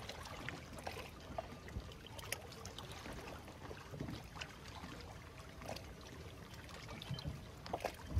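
Faint outdoor ambience: water trickling and lapping among rocks over a low wind rumble, with scattered small ticks throughout and a few louder ones near the end.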